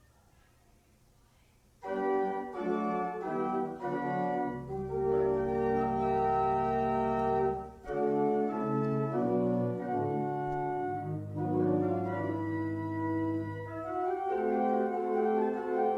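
Near silence for about two seconds, then an organ starts playing sustained chords, with low bass notes entering a couple of seconds later: the postlude after the benediction.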